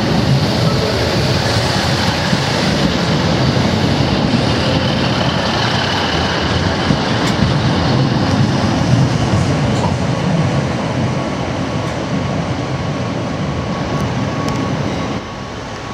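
First ScotRail Class 156 Super Sprinter diesel multiple unit passing slowly at close range, its underfloor Cummins diesel engines running and its wheels rumbling over the track. The sound is loud and steady, dropping suddenly near the end.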